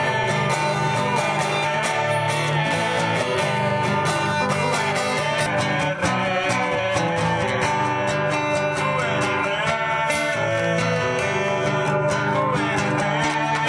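Music: acoustic guitars strummed in a steady rhythm, playing a song.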